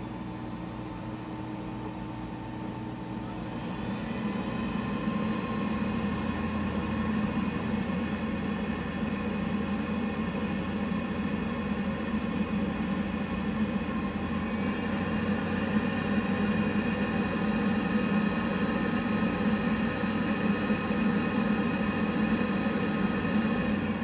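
Navien NCB-240E combi boiler running as it starts up again after being powered back on: a steady mechanical hum and whir that rises in pitch and grows louder about four seconds in, then climbs again around fifteen seconds in.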